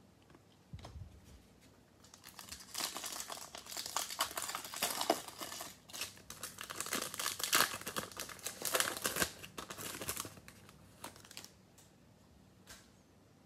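Wrapper of a Panini Select football card pack being torn open and crinkled by hand: dense, irregular crackling that starts about two seconds in and dies away a couple of seconds before the end.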